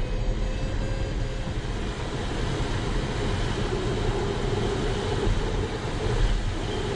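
Steady rush of airflow over the canopy and fuselage, heard inside the cockpit of an engineless ASW 20B sailplane in cruise flight. A thin tone slides slowly down in pitch and fades out about a second and a half in.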